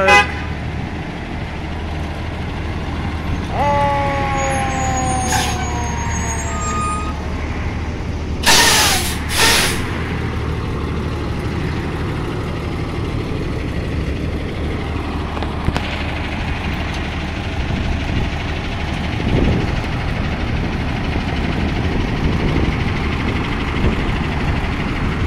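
Pierce fire engine's diesel running steadily as it pulls out of the station bay, with two sharp air-brake hisses about a second apart roughly a third of the way in. Shortly before the hisses, a tone slides slowly down in pitch for about three seconds.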